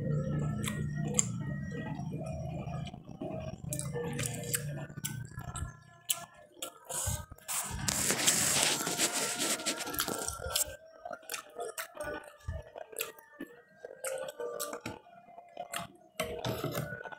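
Close-up eating sounds: a person chewing and smacking on rice and braised chicken, with many short clicks and smacks. A louder rushing hiss runs for about two seconds, starting about eight seconds in.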